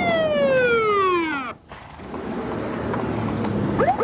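Police car siren winding down: its wail falls steadily in pitch and cuts off about a second and a half in, leaving a low steady noise of traffic.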